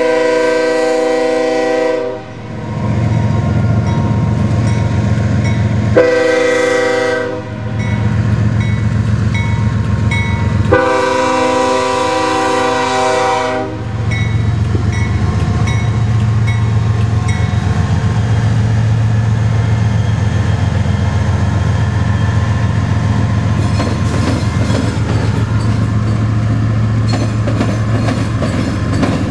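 CSX freight train's diesel locomotives passing close by, the air horn sounding three blasts, long, short and long, over the steady drone of the engines. After the horn the engines keep droning as the locomotives go by, and near the end the wheels start clicking over the rail joints.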